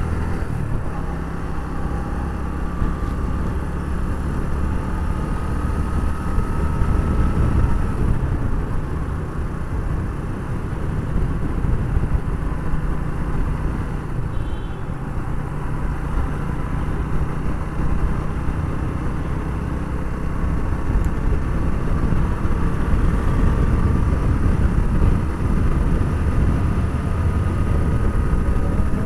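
Suzuki GS 150 motorcycle's single-cylinder four-stroke engine running steadily while riding at a cruising pace, heard from the rider's seat as a continuous low hum.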